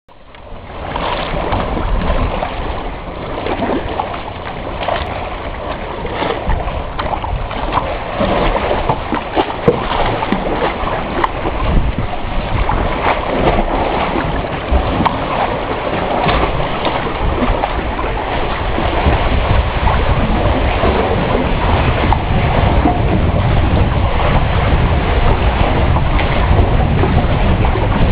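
Sea water splashing and lapping around a kayak close to the rocks, with wind buffeting the microphone. A low rumble grows stronger in the second half.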